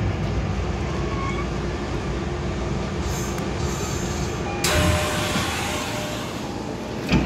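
Kobe Municipal Subway 6000-series train standing at the platform with its equipment running: a steady low rumbling hum. About two-thirds through, a louder hissing noise starts suddenly, and there is a single thump near the end.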